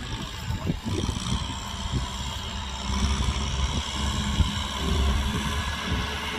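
Kubota tractor's diesel engine running, a steady low rumble that grows a little louder about three seconds in.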